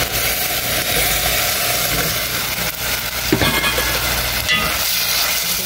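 Sweet and sour sauce boiling in a metal pot, a steady bubbling hiss, as pieces of fried chicken are tipped in, with a few light knocks about three seconds in.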